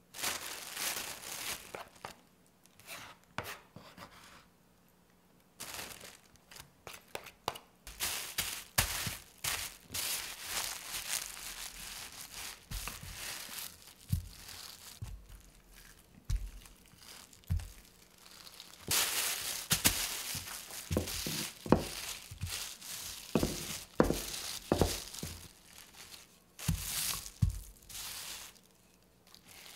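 Thin plastic bag crinkling and rustling in irregular bursts as crumbly pastry dough is tipped into it. Then a wooden rolling pin is rolled over the dough through the plastic, giving a few short, dull knocks.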